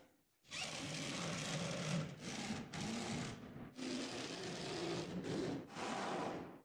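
Corded electric drill driving screws into a plywood sofa frame. The motor runs in several stretches of a second or so, with short breaks between them.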